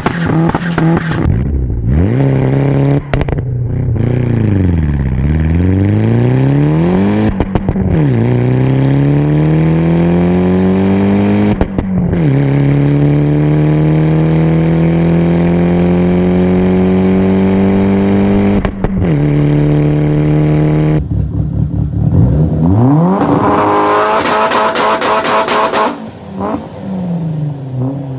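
Mitsubishi Eclipse 2G engine and exhaust accelerating hard through the gears. The pitch climbs steadily in each gear and drops at each shift, with a short sharp crack at the gear changes. A harder rev rises near the end, then falls away.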